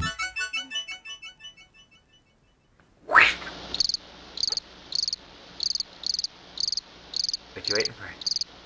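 The tail of electronic intro music echoes and fades out, then a short loud rising whoosh. A cricket then chirps steadily, high pulsed chirps at about one and a half to two a second.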